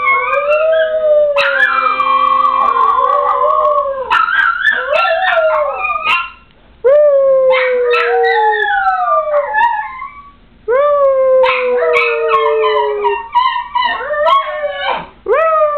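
A schnauzer-yorkie mix and a West Highland white terrier howling together. The overlapping howls mostly fall in pitch, with two short breaks, about six and ten seconds in.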